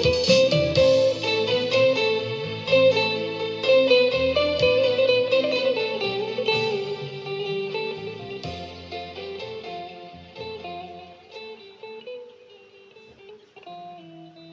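Instrumental guitar music, plucked melody over held notes, fading out gradually toward the end of the piece.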